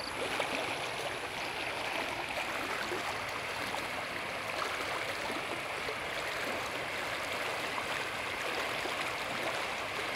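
Floodwater flowing steadily over a grassy bank: a continuous hiss of running water.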